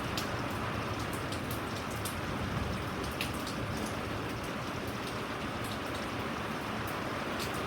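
Steady rain falling, an even hiss with many sharp individual drop ticks scattered through it.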